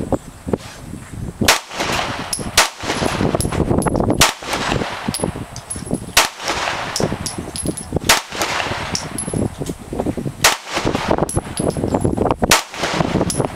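Smith & Wesson M&P 9mm pistol fired in deliberate single shots, about seven sharp cracks one every one to two seconds, with fainter gunshots in between.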